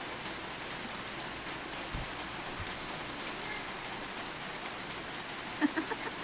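Steady rain falling, an even hiss throughout. A brief voice, likely one of the children playing in the floodwater, is heard near the end.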